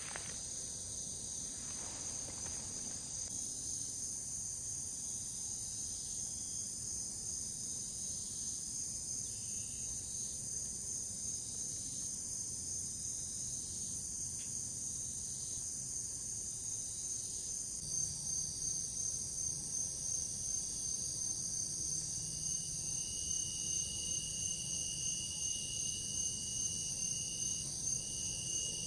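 Steady high-pitched chorus of crickets and other insects, with a second rhythmically pulsing insect layer joining about two-thirds of the way in.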